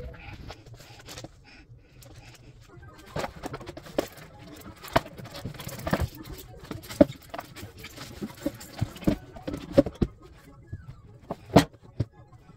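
Cardboard product packaging being handled: a sleeve slid off and a lid lifted from a rigid box, with irregular taps, knocks and rustling.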